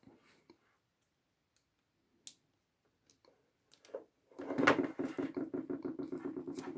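A cable stripper scoring around an Ethernet cable's outer jacket: a few faint clicks, then about four seconds in a fast, rasping run of strokes, about ten a second, as the blade is worked around the jacket.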